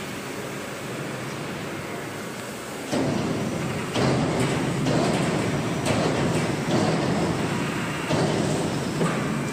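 Overhead crane running while it carries a suspended injection moulding machine: a steady mechanical rumble that gets louder about three seconds in, with knocks roughly once a second.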